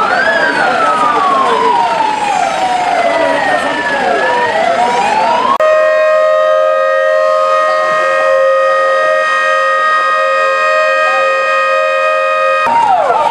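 Several emergency-vehicle sirens sounding at once, a slow wail rising and falling over a fast repeating yelp. About five and a half seconds in, this changes abruptly to a single steady held tone with many overtones for about seven seconds. The fast yelping sirens return near the end.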